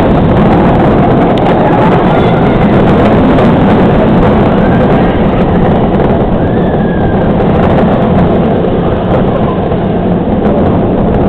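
Loud, steady rush of wind and running noise from a speeding B&M inverted roller coaster train, with wind buffeting the microphone in the front row.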